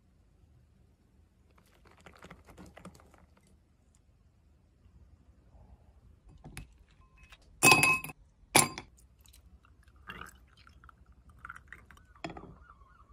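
Quiet handling noises, then two sharp clinks just under a second apart near the middle, a metal spoon knocking against glass, followed by a few lighter knocks.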